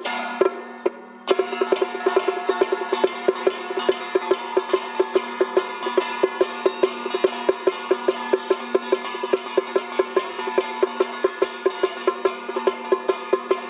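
Temple-procession percussion music: a fast, steady clacking beat over sustained ringing tones. It dips briefly a little after the start, then comes back in at full level.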